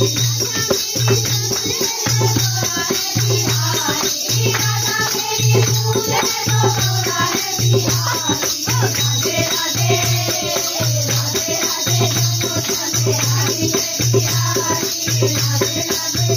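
Kirtan: a group of women singing a devotional song over a steady low beat, with hand-clapping and shaken rattles throughout.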